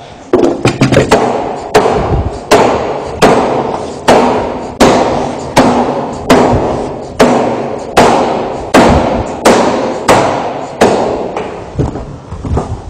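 A hammer-actuated hidden deck-fastener tool being struck over and over, driving fasteners into AZEK decking boards. The blows come steadily, about one every three-quarters of a second, each a sharp knock with a short ring after it.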